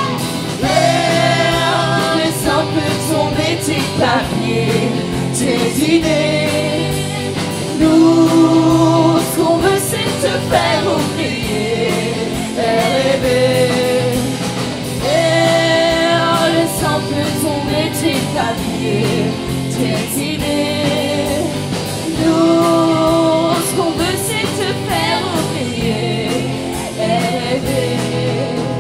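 Live band music: a woman singing lead over drum kit and guitar.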